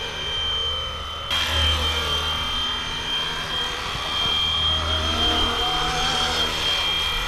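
Flywing Bell UH-1 Huey RC helicopter in flight: its electric motor and drivetrain give a steady high-pitched whine over the whir of the rotor. The sound turns abruptly fuller and brighter just over a second in.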